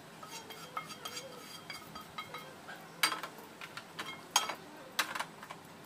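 Spatula scraping and clinking against a frying pan and serving plate as cooked food is scooped out: scattered light scrapes and clicks, with a few louder sharp clinks in the second half.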